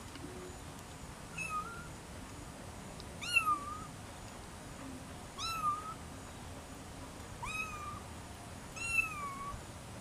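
A young animal mewing: five short, high, meow-like calls about two seconds apart, each rising then falling in pitch.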